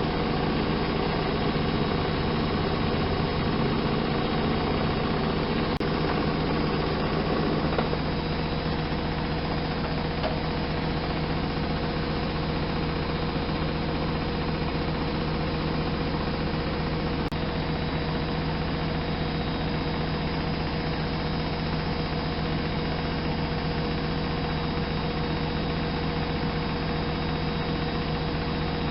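Miele Softtronic W 204 washing machine running steadily with a mechanical hum. About eight seconds in, part of its sound drops away and it carries on more quietly.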